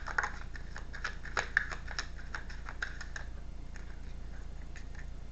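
A deck of tarot cards shuffled by hand: a quick run of soft card clicks and snaps that thins to a few scattered clicks after about three seconds.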